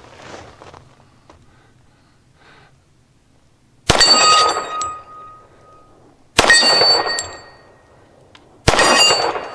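Three shots from a Thompson Auto-Ordnance 1911 .45 ACP pistol, about two and a half seconds apart. Each is followed by the ringing of a steel plate target being hit.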